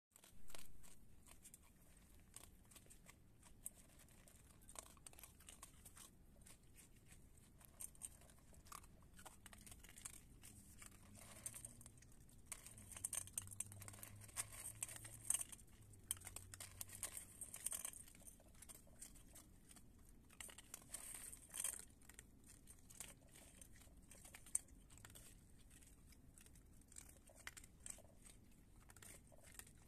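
Raccoons chewing and crunching dry kibble, faint, with irregular small clicks and crackles as they eat and paw at the food in metal bowls.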